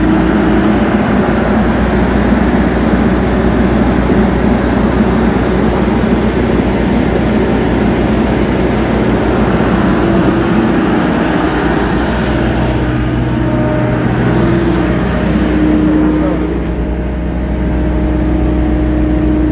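Bobcat T40.180SLP telehandler's diesel engine running steadily, with a steady low hum. It turns a little quieter and duller near the end.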